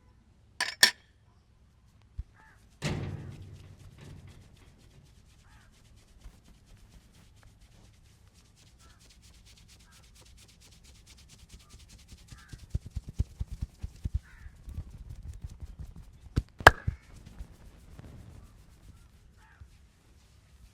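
Hands working fast over a person's head and back in an aggressive massage. A pair of sharp cracks comes just under a second in, a heavy thump at about three seconds, then rapid rubbing strokes and a quick run of patting slaps. Another pair of sharp cracks comes near the end.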